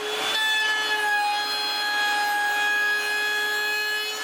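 Small electric wood router mounted in a homemade router table, its motor and cutter spinning at full speed: a steady high-pitched whine, with a brief rush of noise near the start.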